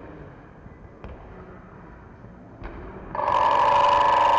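Quiet room noise with two faint knocks, then about three seconds in a loud, steady tone with several pitches starts abruptly and holds.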